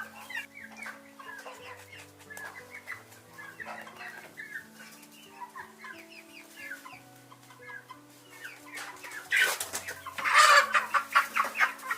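A group of young chicks peeping and clucking, short calls overlapping one another. Near the end they break into a louder, denser burst of calling.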